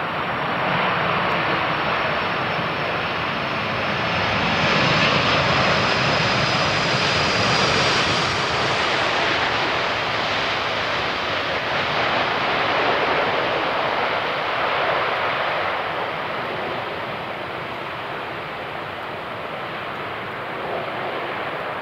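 Four-engine Boeing 747 freighter landing and rolling out, its jet engine noise swelling to a peak a few seconds in and then slowly fading, with a faint high whine sliding down in the first half.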